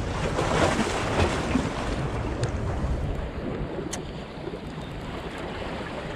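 Small waves washing and splashing against jetty rocks, louder over the first few seconds and then easing, with wind rumbling on the microphone. Two faint clicks, about two and a half and four seconds in.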